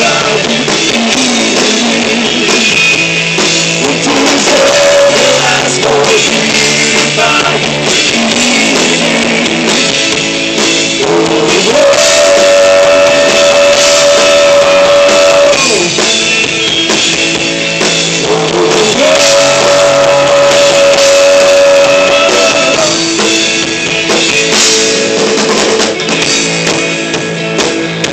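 Live rock band playing: distorted electric guitars and a drum kit with a singer, including two long held notes in the middle of the passage.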